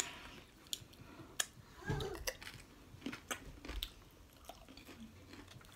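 Tortilla chips of loaded nachos being bitten and chewed close to the microphone: scattered crisp crunches, a few sharp ones, with a brief murmur about two seconds in.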